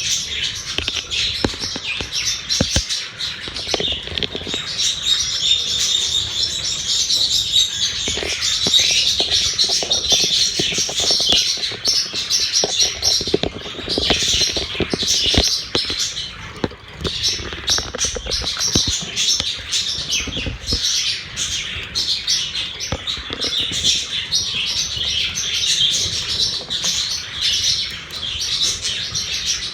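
A group of budgerigars chattering and chirping without pause, a dense warble of quick twittering calls, with scattered sharp clicks and taps among them.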